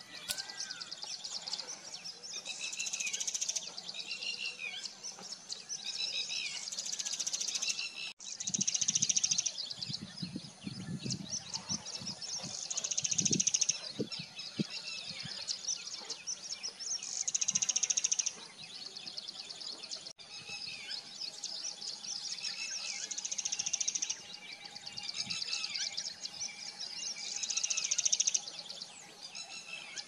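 Birds calling outdoors: high, buzzy trilled phrases about a second long repeat every few seconds, among shorter chirping notes.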